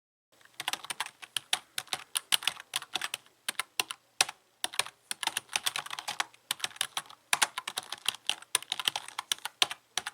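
Typing on a computer keyboard: a fast, uneven run of key clicks with a couple of short pauses.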